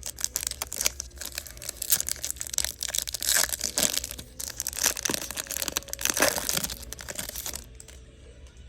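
Trading cards being handled and flipped through, with crinkling from the foil pack wrapper: quick, irregular rustles and flicks that stop shortly before the end.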